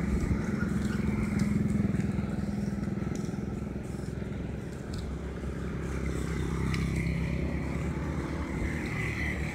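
Motorcycle engine running steadily close by.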